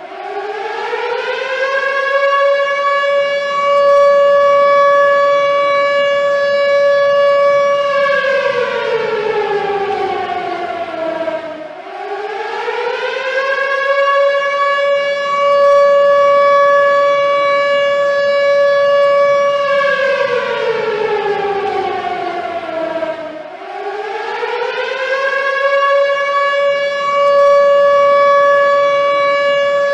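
Air-raid warning siren, loud, repeatedly winding up to a steady wail, holding it for several seconds, then winding down before rising again: three cycles about twelve seconds apart.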